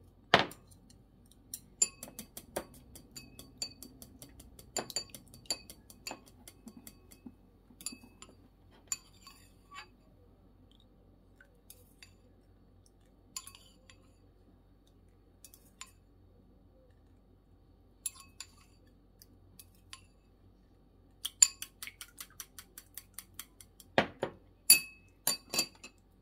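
Chopsticks beating raw eggs in a ceramic rice bowl: bursts of rapid clicking and clinking against the bowl, with pauses between. A few louder knocks come at the start and near the end.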